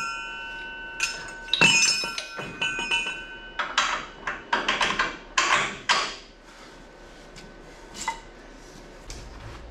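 Loose metal parts clanking: two sharp strikes that ring on with a clear tone for a second or more, then a quick run of knocking and scraping, and one small knock near the end.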